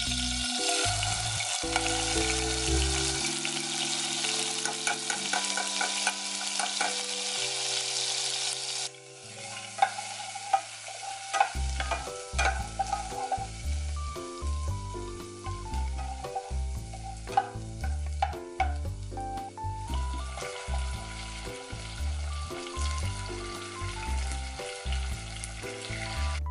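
Minced garlic sizzling in hot fat in a saucepan. The sizzle is loud at first and drops to a quieter sizzle about nine seconds in, with the scrape and tap of a spoon stirring it. Background music with a steady beat plays throughout.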